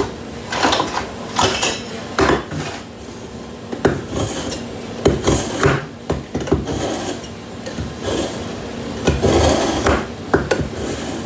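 Kitchen knife being sharpened: a series of irregular metal-on-metal scraping strokes, with some clinks between them.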